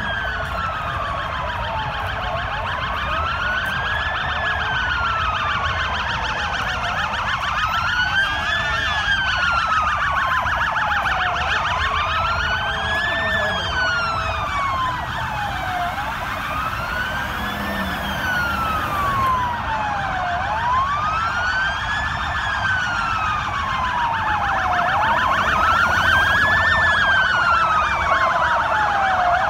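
Several police-vehicle sirens sounding together. One wails in a slow rise and fall about every four and a half seconds over a faster warbling siren, with a low rumble of traffic underneath, and the sirens grow louder near the end as the vehicles come closer.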